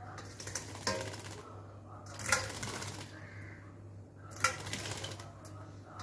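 A myna bathing in a steel bowl of water, flicking its wings to splash in three quick bursts of rapid pattering and spray, with a steady low hum underneath.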